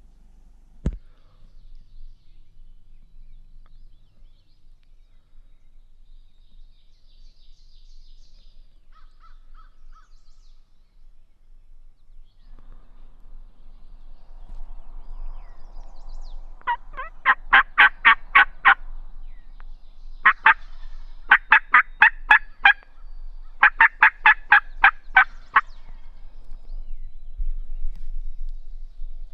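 Turkey yelping: three loud series of evenly spaced notes in the second half, each about two seconds long at roughly four notes a second.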